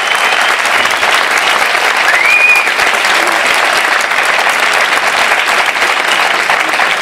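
A large audience applauding steadily, with one brief rising cry about two seconds in.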